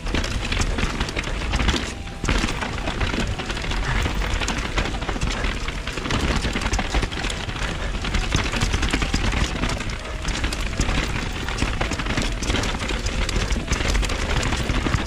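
Vitus Sommet VR mountain bike riding downhill over rough, stony ground: a steady clatter and rattle of the bike with tyre noise. Wind rumbles on the action-camera microphone.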